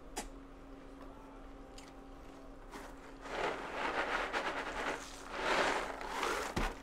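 Dry cereal rattling and pouring inside a cardboard box as it is tipped up and shaken, in two long grainy bursts from about three seconds in, with a short click just after the start.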